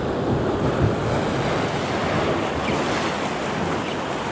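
Steady rush of sea waves and water, with wind buffeting the microphone.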